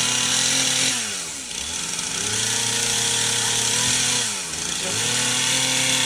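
Chainsaw carving wood, held at high revs through the cuts and dropping back toward idle between them, about a second in and again around four and a half seconds, then revving back up.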